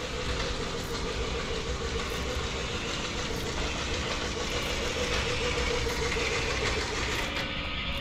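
Remote-control robot spider's small electric gear motor whirring steadily as it walks on its plastic legs across a tile floor.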